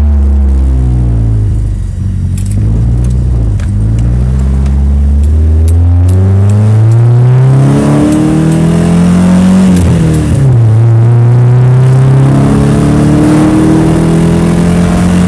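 Nissan S13's engine accelerating: low and fairly steady at first, then the pitch climbs, drops sharply about ten seconds in, and climbs again. The car is said to have a misfire.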